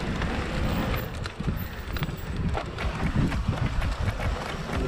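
Electric mountain bike moving over a rough dirt trail: steady wind rumble on the microphone with irregular knocks and rattles from the tyres and frame.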